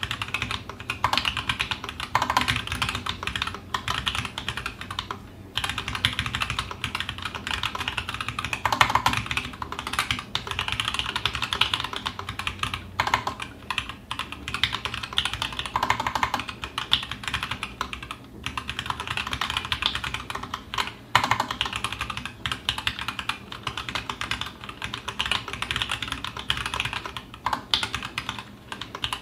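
Continuous fast typing on a TGR Alice mechanical keyboard with stock, unlubed 78 g Zealio V2 tactile switches and GMK keycaps: a dense run of keystrokes broken by a few short pauses.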